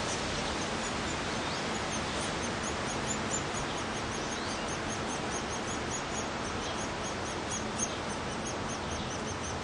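Downy woodpecker nestlings begging: a steady run of short, very high chirps, about four a second, over a constant noise hiss.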